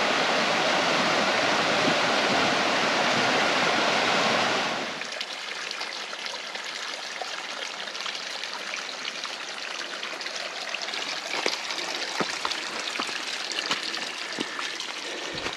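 A mountain creek rushing over a small rocky cascade. About five seconds in, the sound drops to a quieter stretch of trickling water with light crackles, like footsteps in dry leaves.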